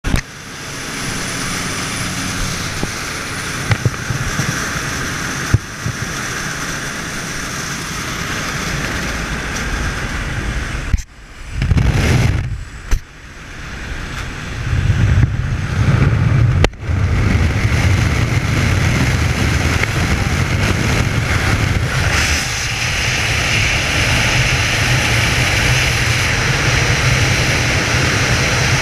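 Steady drone of a jump plane's engine and cabin noise, then a broken, gusty rumble of rushing air at the open door about halfway through. From there on a steady loud roar of freefall wind buffeting the helmet camera's microphone.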